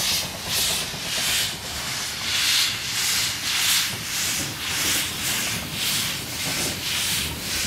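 Narrow-gauge 2-10-2 tank steam locomotive 99 7239-9 working under steam, its exhaust beats coming as loud hissing chuffs in a steady rhythm of about one and a half a second as it passes close.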